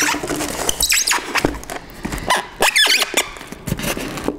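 Styrofoam packing shell squeaking and creaking as it is handled and its foam halves rub against each other: several short squeaks with wavering pitch, the loudest a little past the middle.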